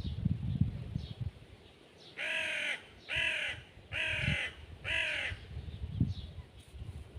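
A crow cawing four times in a steady rhythm, each harsh call about half a second long, with low rumbling noise in the first second.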